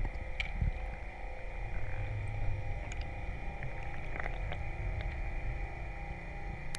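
Underwater ambience heard on a diver's camera: a steady low rumble with a faint hum and a few scattered faint clicks.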